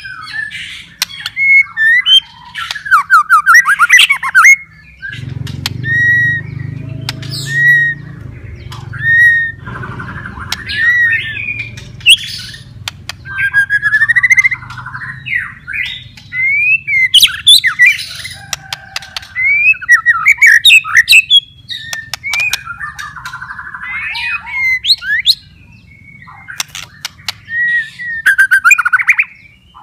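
White-rumped shama singing a long, varied song of quick whistled phrases and slurred notes, broken up by sharp clicking rattles.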